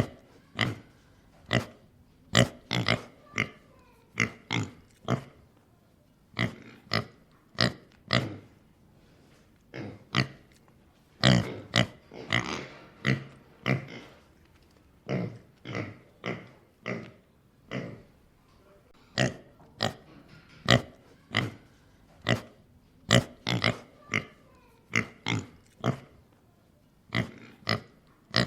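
Pig grunting: a long series of short, separate grunts, about one or two a second, with brief pauses between bursts.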